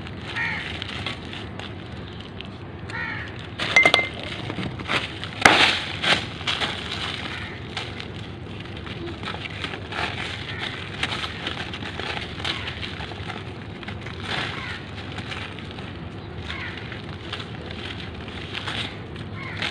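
Dry, crumbly cement blocks being crushed and broken apart by hand over a plastic sheet: gritty crunching and crackling, with the loudest breaks about four and six seconds in.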